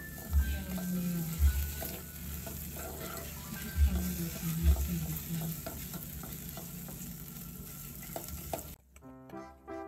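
Chopped onions and tomato paste sizzling as they fry in oil in an aluminium pot, stirred with a metal spoon that knocks against the pot a few times. Near the end the sizzling cuts off and music begins.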